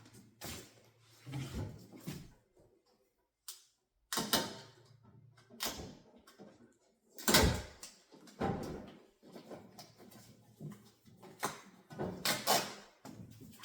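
Irregular knocks, clicks and rustling scrapes from handling a new refrigerator and its packaging during unpacking, with the loudest knock about halfway through.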